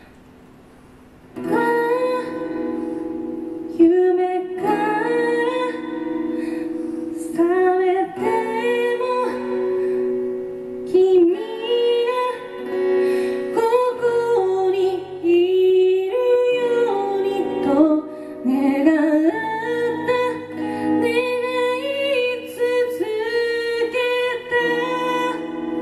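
A woman singing to her own acoustic guitar. After a soft opening second or so, voice and guitar come in fully and carry on as a slow song.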